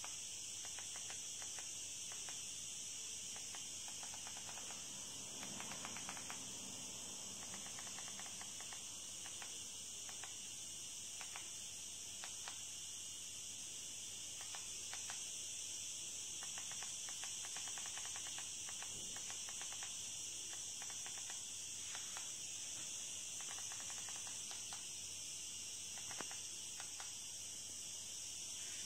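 Soft, irregular clicks of buttons being pressed on a handheld mini wireless keyboard, under a steady high-pitched hiss that is the loudest thing throughout.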